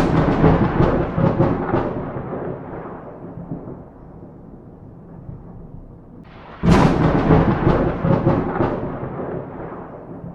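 Two thunderclaps. Each opens with a sudden crack and crackling, then fades into a rumble over several seconds. The second comes about seven seconds after the first.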